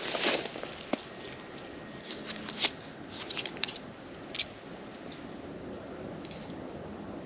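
Irregular rustling and crackling with a few sharp clicks, like a hiker stepping through dry brush and leaves. The crackles cluster in the first few seconds and thin out after that.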